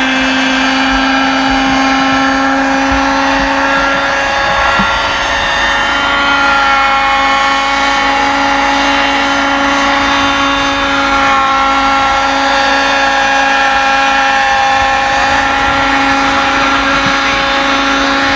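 Radio-controlled Robbe Ecureuil model helicopter in flight, its small glow engine and rotors giving a steady high-pitched buzz whose pitch shifts slightly a couple of times.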